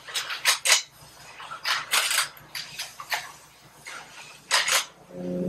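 Irregular sharp metallic clinks and knocks of supercharger parts and hand tools being handled on a workbench. Near the end a short low pitched tone begins.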